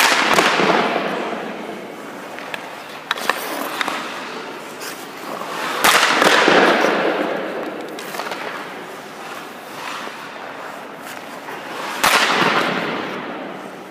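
Three hockey shots about six seconds apart, each a sharp crack of stick on puck followed by a long echo that fades over a couple of seconds in the ice rink. Fainter knocks come between the shots.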